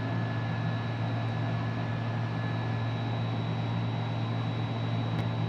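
Steady machine hum, like a fan running, with a low drone and a faint high whine that stops a little past halfway through.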